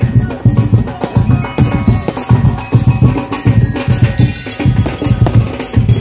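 Loud drum-heavy Sinulog dance music with a steady, regular drum beat.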